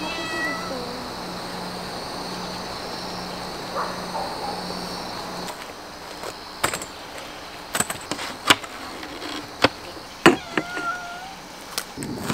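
Steady evening insect chirring with a low hum, and a few short cat meows near the start. About halfway in this gives way to sharp clicks and knocks from folding camp chairs being unfolded and set down on paving stones, with one more short meow near the end.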